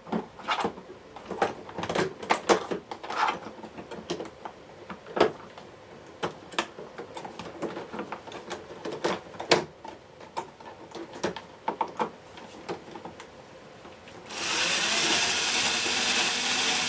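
Plastic clicks and knocks as the vacuum cleaner's casing parts are pressed and fitted together. About fourteen seconds in, a cordless power screwdriver's motor starts and runs steadily, louder than the handling noise.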